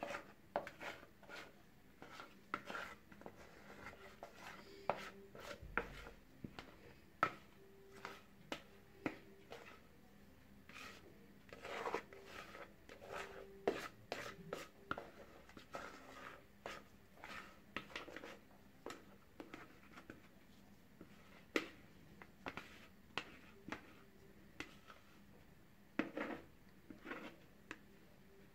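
Plastic spatula scraping thick semolina cake batter out of a plastic mixing bowl: soft, irregular scrapes and taps against the bowl's sides, a few sharper knocks among them.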